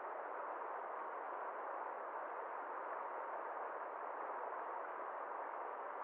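Steady rushing of a shallow stream flowing fast over rocks, an even hiss without splashes or changes.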